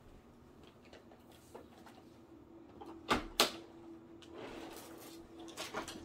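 Handling noises with the vacuum switched off: two sharp clicks about a third of a second apart roughly three seconds in, then short rustling, over a faint steady hum.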